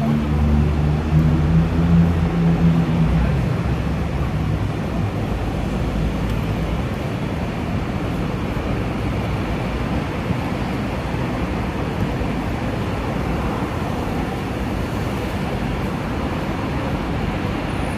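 Steady city traffic noise with a low engine hum in the first few seconds that fades out.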